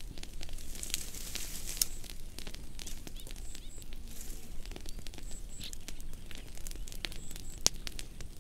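Fire crackling: irregular sharp pops over a steady hiss, with a faint high double chirp a few times.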